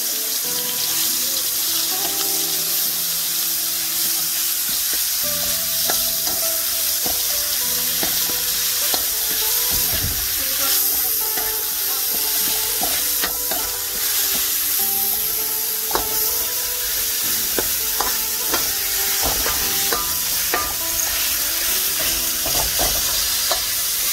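Ground spice paste (shallot, garlic, turmeric, ginger, chilli) and lemongrass stalks sizzling in hot oil in a wok, a steady frying hiss. A spatula stirring them scrapes and taps against the pan many times.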